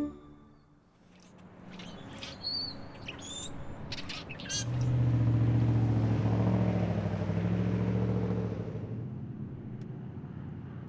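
Small birds chirping in short high calls, while a car's engine hum builds up, is loudest about halfway through, and fades near the end as the car passes by.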